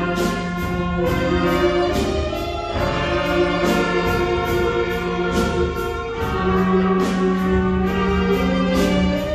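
Children's elementary-school wind band playing: brass and woodwinds holding long notes over a low note and a steady beat.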